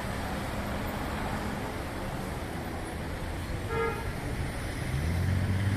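City street traffic: a steady wash of car engines and tyres, with one short car-horn toot about two-thirds of the way in. Near the end a low engine drone grows louder as a vehicle passes close.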